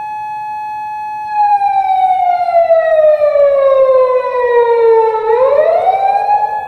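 Japanese unmarked police car siren wailing. It holds a steady note, slides slowly down in pitch over about four seconds, then sweeps quickly back up to the held note near the end.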